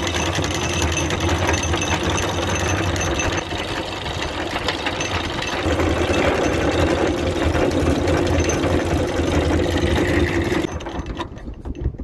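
Sailboat's inboard engine running steadily, a little louder from about six seconds in, then shut off abruptly near the end once the boat is anchored.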